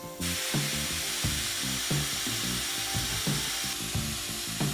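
Compressed air hissing steadily through a homemade sandblaster made from an oil filter, driving sand over a spark plug held inside to clean it. The hiss starts a moment in. Background music with a steady beat runs underneath.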